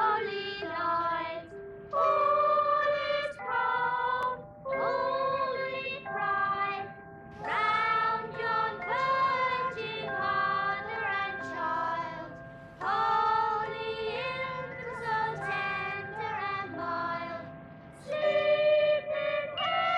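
Opening title music: a melody of held notes moving from one pitch to the next, with short breaks between phrases.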